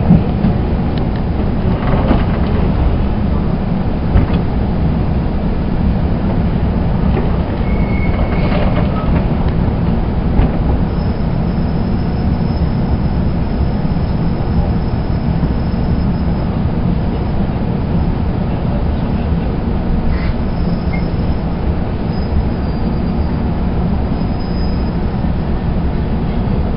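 Shinkansen running noise heard from inside the passenger car: a steady low rumble of wheels on rail, with a few light clicks, as the train arrives at a station.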